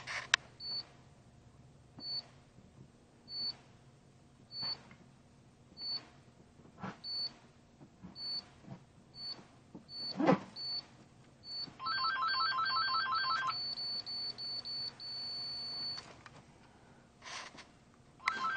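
Pittsburgh Pro digital torque wrench adapter beeping as a cylinder head bolt is pulled up: short high beeps about a second apart come faster and faster as the torque nears the 60 setting. About two-thirds of the way through they run together into a rapid beeping and then a steady tone, the sign that the set torque has been reached and held. A few light knocks of the wrench are heard along the way.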